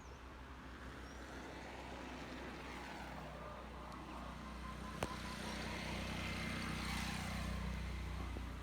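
A motor vehicle running, its engine and road noise growing louder to a peak near the end as it comes close, with one sharp click about five seconds in.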